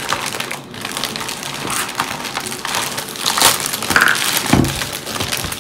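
A clear plastic bag crinkling and crackling as it is pulled open and its contents are handled.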